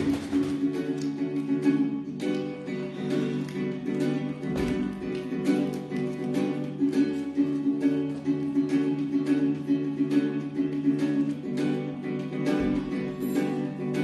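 Guitar playing an instrumental meditation song, with picked notes and chords ringing on.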